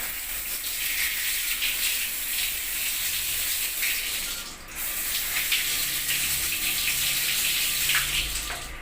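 A jet of water spraying steadily onto a freehub bearing, rinsing off degreaser and grime. It pauses briefly a little past the middle, then starts again.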